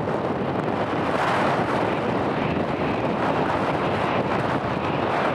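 Jet airliner engines giving a steady roar, with wind on the microphone.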